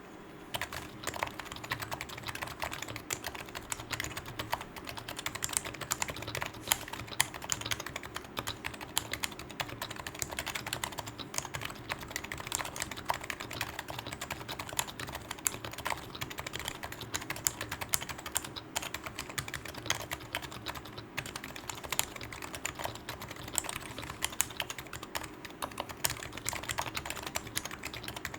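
Continuous typing on a Topre keyboard, a Sho66 case with a brass plate, Leopold FC660C rubber-dome Topre switches with lubed housings, and PBT keycaps. A steady, dense stream of keystrokes starts right at the beginning.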